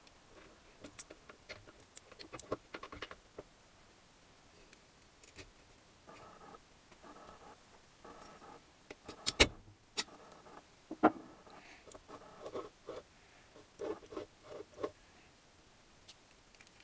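Small gearbox parts clicking and tapping as they are handled and fitted into an Adler MB250's aluminium engine case: scattered light clicks with some soft rustling, and two sharper clicks about halfway through.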